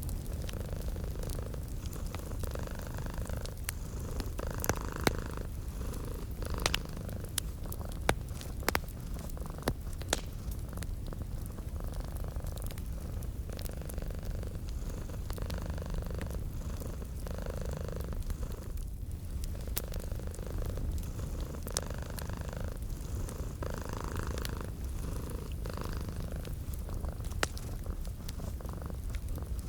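A domestic cat purring steadily in slow swells, over the crackle of a wood fire with scattered sharp pops.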